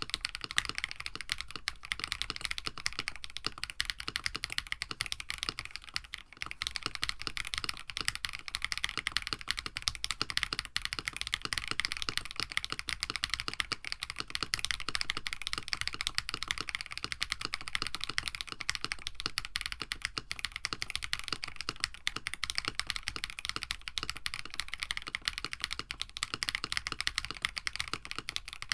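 Continuous fast typing on a KBD67 Lite keyboard with an FR4 plate and stock, unlubed KTT Strawberry linear switches: a dense stream of sharp, high-pitched key clacks.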